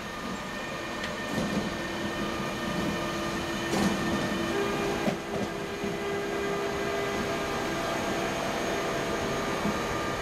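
BLS Re 485 (Bombardier Traxx) electric locomotive passing slowly on its own, with a steady whine that steps up in pitch about halfway through. Wheels give a few sharp clicks over rail joints and points.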